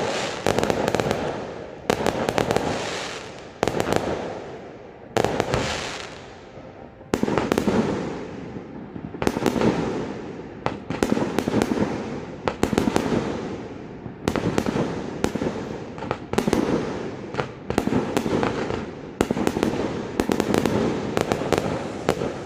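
Fireworks going off in a steady display: a sharp bang about every one and a half to two seconds, sometimes several in quick succession, each dying away in a crackling tail.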